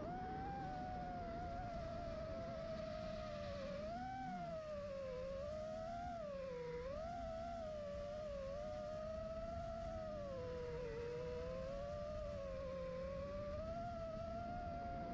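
FPV racing quadcopter's motors and propellers whining in one continuous tone that wavers up and down in pitch as the throttle changes.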